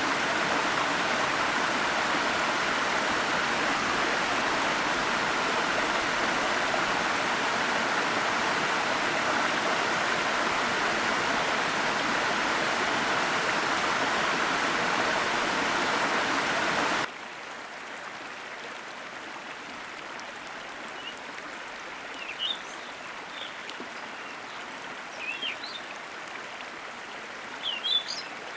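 Sopit Waterfall's water falling in a steady, even rush; a little past halfway it cuts off suddenly to a quieter, softer flow of water. A few short, high chirps sound in the last several seconds.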